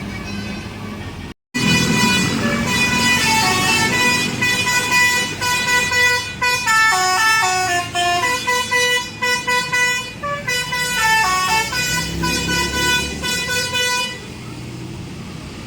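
A bus's telolet basuri horn playing a tune of short stepped notes, with quick falling and rising runs of notes twice in the middle. It starts after a brief break about a second and a half in and stops about fourteen seconds in, with a low rumble underneath.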